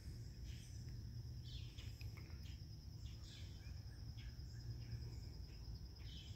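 Faint outdoor ambience: a steady, high insect trill, like crickets, with a few short chirps scattered through, over a low rumble.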